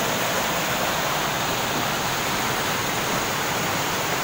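Stream water rushing and splashing down a short rocky cascade in a steady, continuous rush.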